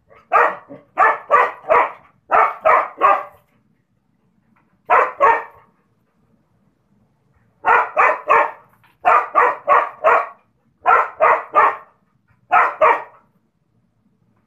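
Chained dog barking at a rooster in quick runs of two to four barks, with short pauses between the runs and a longer lull about halfway through.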